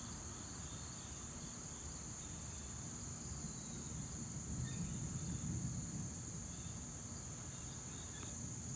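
Steady high-pitched chorus of insects, with a faint low rumble of distant thunder that swells about halfway through.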